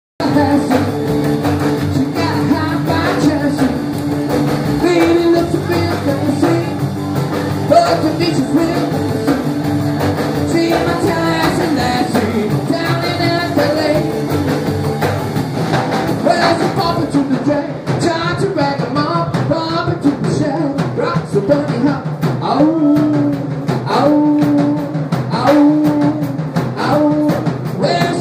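Live rock and roll played on upright double bass and acoustic guitar, with a man singing.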